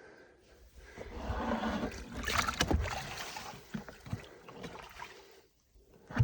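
Water splashing and gurgling for a couple of seconds, loudest near the middle, then dying away with a few light knocks.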